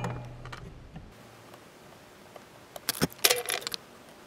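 Multimeter test probe tips clicking and scraping against the metal header pins and solder joints of a prototyping board, a short cluster of small sharp metallic clicks about three seconds in, as the +5 V buses are checked.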